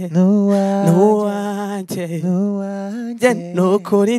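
Male voice singing unaccompanied into a handheld microphone, an improvised afropop love song, holding long notes with wavering bends and short runs between them.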